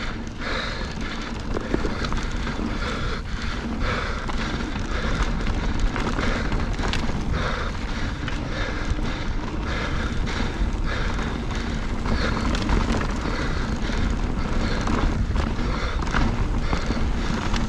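Wind rushing over the camera microphone as a mountain bike rolls fast down a dry, stony dirt trail. Tyre crunch and the rattle and clatter of the bike over bumps run through it.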